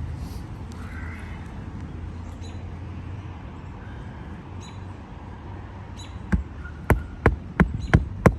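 Hammer striking a roofing nail into an asphalt shingle, six sharp strikes in quick succession near the end, over a low steady background rumble with faint bird chirps.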